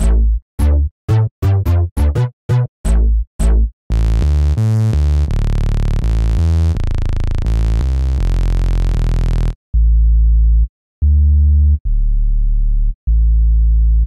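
Sampled synthesizer bass notes played from a keyboard. First come about ten short, quickly decaying plucked notes, then held bright, buzzy saw-bass notes. From about ten seconds in there are deep sub-bass notes with short gaps, sampled from a Roland MKS-80.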